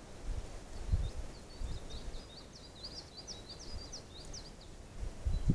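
A small songbird singing a quick twittering run of short high notes for about four seconds, over low rumbling gusts of wind on the microphone, the strongest about a second in and again at the end.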